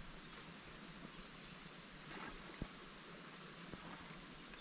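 Quiet open-air ambience from a canoe on a calm lake: a faint, even hiss, with one small knock a little past halfway and a fainter one soon after.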